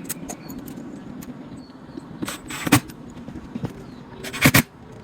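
Knocks, clicks and short rattles from cabinet panels and metal hardware being handled, with two louder brief clatters, one a little past halfway and one near the end.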